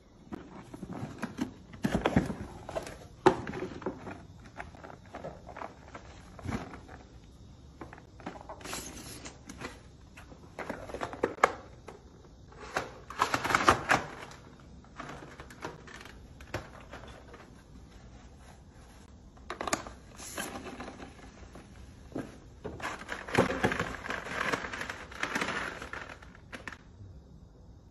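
Handling of a cardboard box and a plastic telescoping stool as the box is opened and the stool is lifted out and extended. Irregular rustles, scrapes and sharp clicks come in several bursts.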